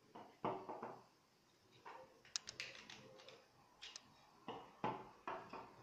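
Light clicks and taps of 3D-printed plastic vertebra models being handled, as pieces are pulled off a stack and set down on a wooden table: about a dozen separate knocks, in small clusters.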